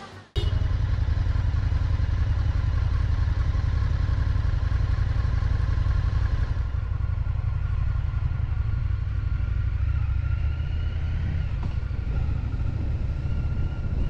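Indian FTR's 1203 cc V-twin engine running steadily at low speed, picked up by a camera mounted on the motorcycle itself. It comes in suddenly about a third of a second in, as background music cuts off.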